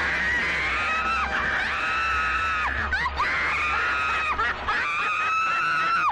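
A woman screaming: four long, high cries one after another, each held for about a second.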